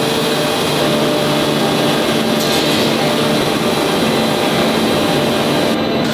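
Steady, loud drone of heavy forging-shop machinery: a rushing noise with several steady hum tones under it, and a brief hiss about two and a half seconds in.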